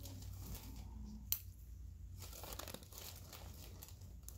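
Faint rustling and crinkling of gloved hands and paper drape as surgical instruments are handled, with one sharp click about a second in, over a steady low room hum.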